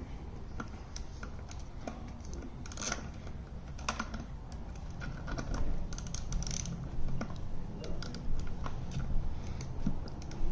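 Irregular ratcheting clicks and light metal clinks from a Husky torque wrench on a long extension, working controller bolts tight, over a steady low background rumble.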